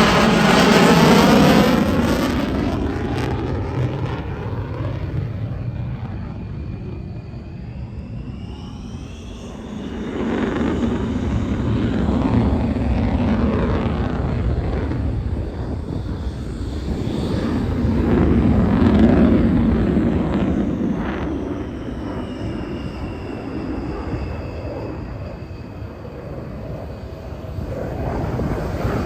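Aircraft flying overhead, its engine noise swelling and fading in several waves, with sweeping whistling tones that rise and then fall as it passes.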